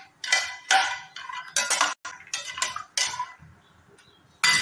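Steel spoon stirring almonds in ghee in a stainless-steel kadhai to roast them, scraping and clinking against the pan. A quick run of strokes about two a second, then a pause, then one more loud stroke near the end.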